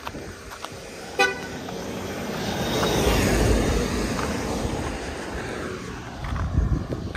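A short horn toot about a second in, then a motor vehicle passing close by, its noise swelling to a peak midway and fading away.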